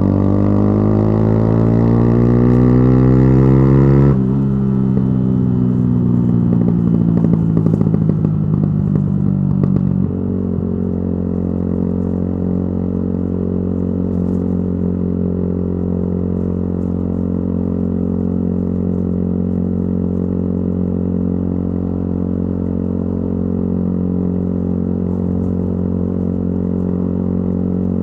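Yamaha YZF-R125's 125 cc single-cylinder engine through a modified exhaust, rising in pitch as it accelerates for about four seconds. It then falls away with a crackle as the throttle closes and the bike slows, and settles to a steady idle about ten seconds in.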